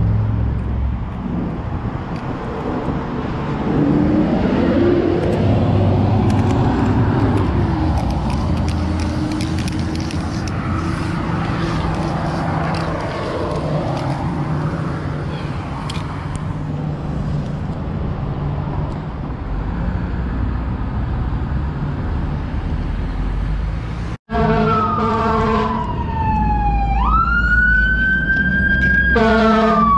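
Street traffic noise, then after a short break about 24 seconds in, an emergency vehicle's siren wailing close by, its pitch falling, rising and falling again, with a blaring horn sounding alongside it.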